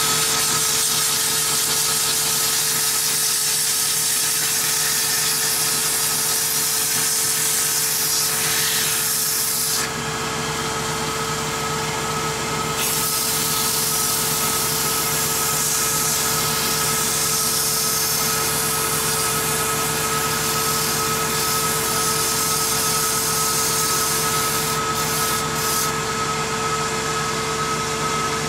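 Wood lathe running steadily, its motor giving a constant hum and whine, with a high hiss from the spinning wooden acorn box being worked by hand and turning gouge. The hiss drops away for a few seconds about ten seconds in, then resumes.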